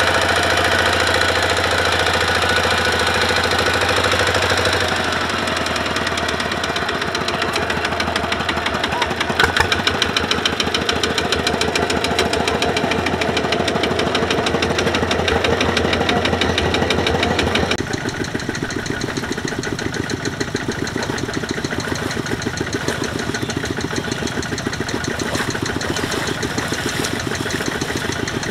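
Single-cylinder diesel engine of a Kubota RT140 walking tractor running steadily with a fast, even knock of firing strokes. The sound becomes a little quieter and duller about two-thirds of the way through.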